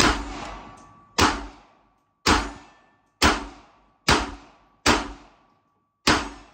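Glock 42 .380 ACP pistol firing seven shots, roughly one a second with a slightly uneven rhythm, each with a short echoing tail.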